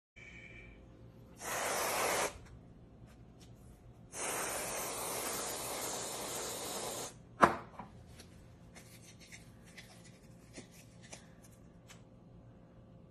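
Aerosol whipped-cream can spraying in two hissing squirts, a short one and then a longer one of about three seconds, followed by a single sharp knock and a few faint ticks.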